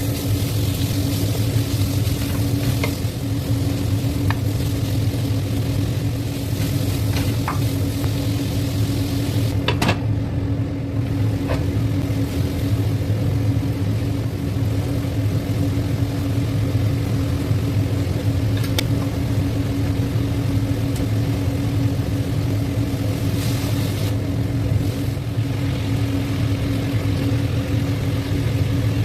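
Vegetables and enoki mushrooms sizzling as they stir-fry in a hot pan, with a few scattered sharp clicks of the stirring utensil against the pan. A steady low hum runs underneath.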